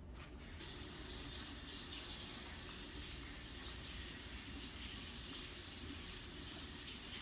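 Kitchen tap running steadily while a spoon is rinsed under it; the water comes on about half a second in.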